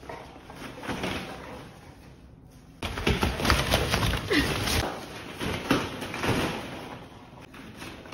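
Plastic ball-pit balls clattering and rattling against each other as a dog pushes and steps through them, much louder from about three seconds in and easing near the end.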